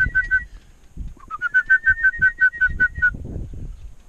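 Hand-blown waterfowl call: a fast, even run of whistled two-note calls, about seven a second. The run begins with a short rising note a little after one second in and stops at about three seconds. A low rumble lies underneath.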